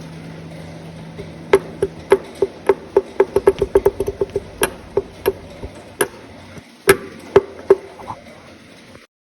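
Sharp metallic clacks, each with a short ring, as parts of a dismantled KTM 450 XC-F engine knock together: about twenty irregular knocks, quickest in a run through the middle.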